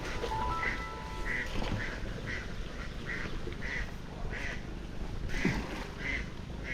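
Domestic ducks quacking repeatedly from the farm flock, about two quacks a second.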